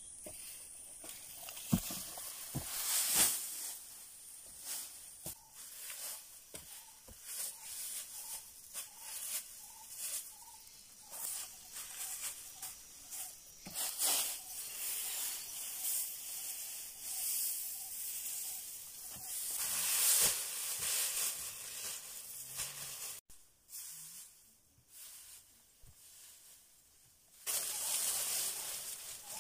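Rustling and crackling of dry leaves, grass thatch and sticks being handled, with scattered snaps and knocks. Near the end, leafy branches rustle as they are spread on the ground.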